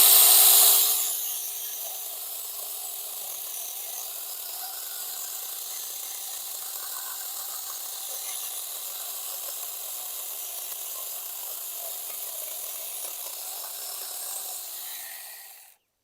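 Saker Mini 6-inch electric chainsaw cutting through an ash limb of about 2.5 inches. It is loudest for about the first second, then settles to a steady whine while the chain cuts through easily. Near the end it winds down and stops.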